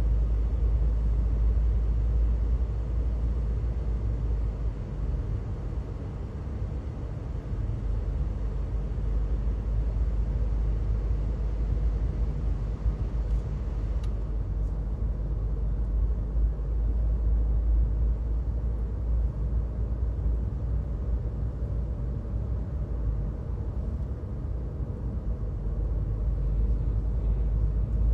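Steady low rumble of a car driving at highway speed, heard from inside the cabin: road and engine noise.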